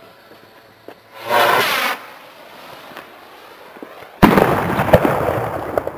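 A firework going off: a short rushing noise about a second in, then a sudden loud bang about four seconds in, followed by sharp pops and crackling that slowly fade.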